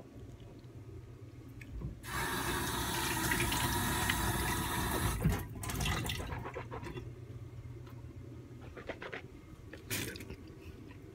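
Rush of running water that starts abruptly about two seconds in, runs for about three seconds and then dies away, followed later by a few faint knocks.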